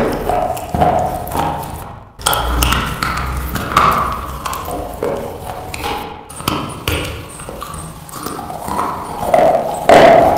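Close-miked chewing of slate pencil pieces: irregular crunches in the mouth, broken twice by brief dropouts to silence.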